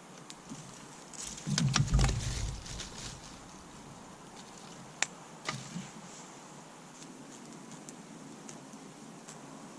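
Rustling and knocking as a person moves about and handles things beside a campfire, loudest a second or two in, then two sharp clicks about half a second apart near the middle.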